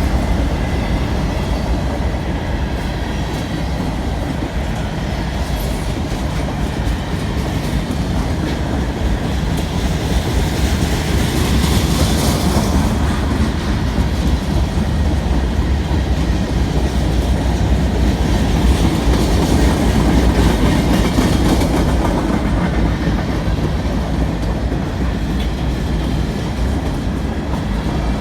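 CN freight train's cars rolling past close by: a steady loud rumble of steel wheels on rail with clickety-clack over the rail joints. The hiss of the wheels swells twice, around the middle and about two-thirds through.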